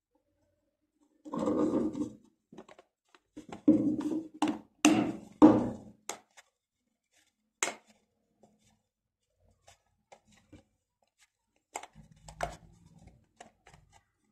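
3D-printed plastic iris box being turned by hand: the plastic rings and leaves scrape and click against each other as the top cover rotates. There is a burst of scraping about a second in, a louder stretch of scraping and sharp clicks from about three and a half to six seconds, then scattered clicks and a little more rubbing near the end.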